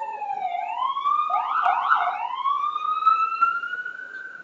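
Fire engine siren wailing. It glides down, breaks into a few quick up-and-down yelps about a second and a half in, then rises slowly again.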